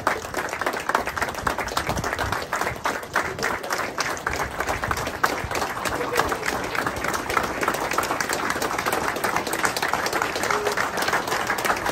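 A crowd of people applauding, many hands clapping steadily, with voices mixed in.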